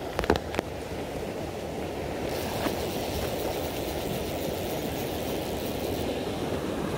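Steady rush of a fast-flowing river current, with a few sharp clicks in the first second.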